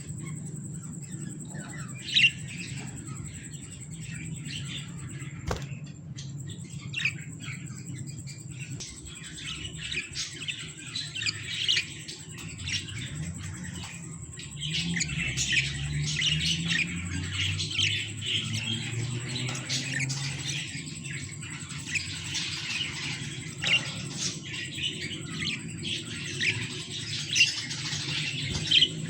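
Budgerigars chattering in rapid, continuous chirps and squawks, growing busier and denser about halfway through, over a steady low hum.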